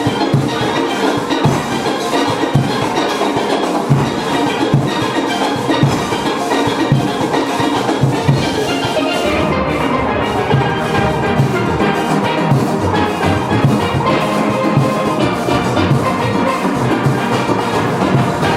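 Steelband playing: steel pans with drums and percussion keeping a steady beat.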